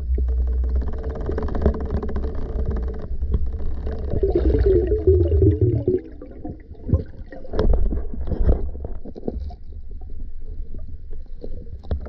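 Muffled underwater sound through a camera housing: a low steady rumble, with a humming tone that wavers and fades about halfway through, then scattered knocks and clicks.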